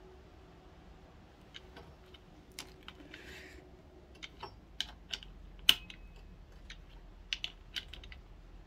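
Small steel socket on an extension clicking and tapping against the clutch pressure-plate bolts of a pit bike engine as they are run in by hand during reassembly: an irregular scatter of sharp metal clicks, the loudest about two-thirds of the way through, with a brief ring.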